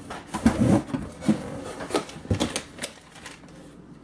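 A cardboard box being opened and its contents handled by hand: a quick run of knocks, scrapes and rustles that dies down about three seconds in.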